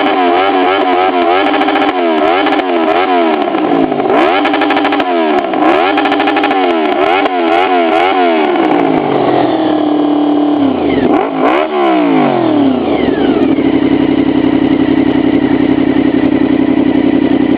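Honda VFR750F RC36's V4 engine revved up and down over and over in quick throttle swings. About ten seconds in, the pitch dips and climbs back, then holds a steady note.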